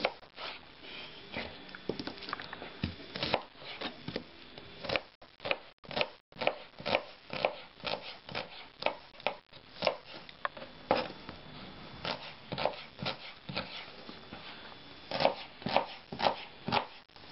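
Kitchen knife chopping onions on a cutting board: a long run of irregular knocks, about two or three a second.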